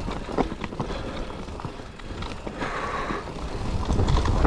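Mountain bike rolling down a dirt trail: tyre noise on the ground and wind on the microphone, with clicks and rattles from the bike over bumps and a short hiss about three seconds in.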